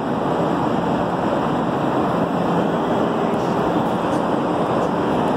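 Steady, even rushing noise of ball-mill machinery running, with a faint low hum under it.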